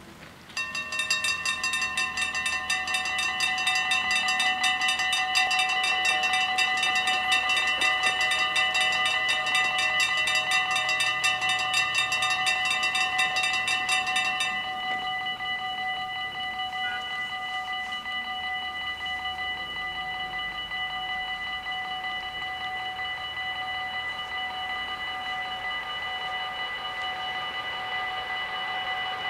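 Dutch AHOB level-crossing warning bells start ringing about half a second in, a loud, rapid ringing. After about fourteen seconds, once the half-barriers are down, the bells drop to a quieter ring that keeps going.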